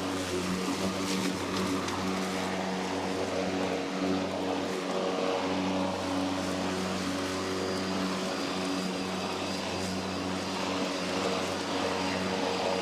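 Worx Nitro WG761E battery-powered lawn mower running steadily while mowing in push mode: an even motor-and-blade hum over a hiss.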